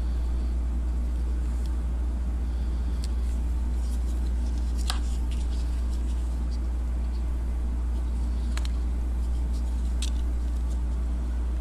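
Steady low hum on the recording, with a few light clicks of hard plastic toys being handled against each other, the clearest about five seconds in.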